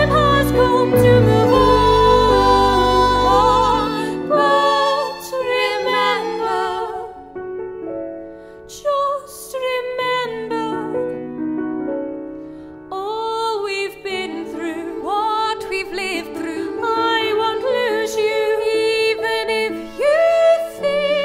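Musical theatre song with voices singing long, wavering held notes over piano accompaniment. The deep bass notes drop out about four seconds in.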